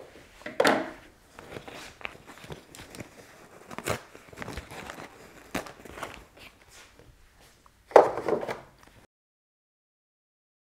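Hand handling of a plastic embroidery hoop and a denim jacket: scattered clicks and rustles, with two louder, longer rustles about a second in and about eight seconds in. The sound cuts off to silence about nine seconds in.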